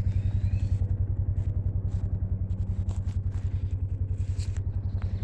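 An engine running steadily at idle, its low exhaust beat pulsing about ten times a second, with a few faint knocks and clanks over it.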